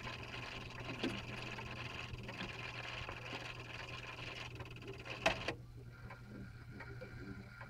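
A repaired McClintock clock movement on test: its gear train whirs steadily, then stops with a sharp click about five seconds in. After that, faint even ticking of the escapement continues over a low steady hum.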